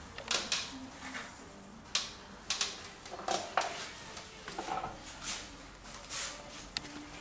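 Light handling noise: scattered sharp clicks and soft knocks at irregular intervals.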